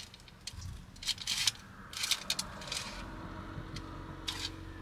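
Wooden chopsticks clicking and scraping as they flake apart grilled fish on aluminium foil in a pan, in several short bursts. A faint steady hum comes in about three seconds in.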